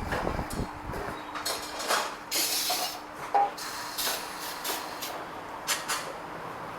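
Tyre-fitting workshop noise: a few short hisses of compressed air among knocks and clicks.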